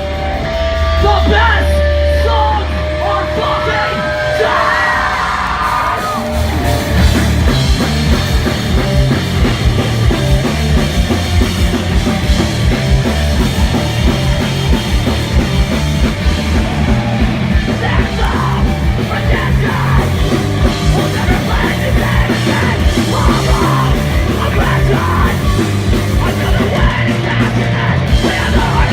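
Live rock band playing loud and distorted, with yelled vocals. A low chord is held for about the first six seconds, then the full band comes in with fast, driving drums.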